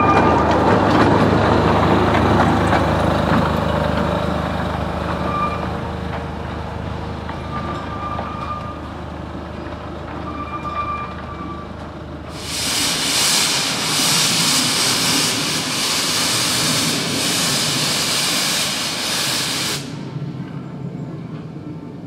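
A narrow-gauge Quarry Hunslet 0-4-0 saddle-tank steam locomotive hauling its coaches past with a steady low rumble. About twelve seconds in, a loud steam hiss starts suddenly and cuts off sharply some eight seconds later.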